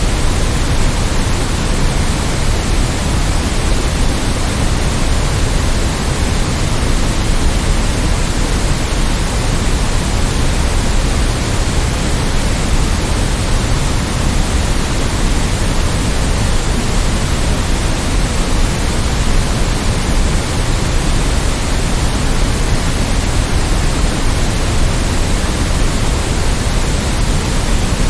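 Steady white noise: an even, unchanging hiss with a deeper rush underneath.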